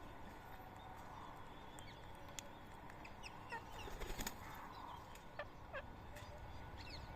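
Faint short, falling bird chirps, repeated several times in the second half, with scattered clicks and a quick run of clicks about four seconds in.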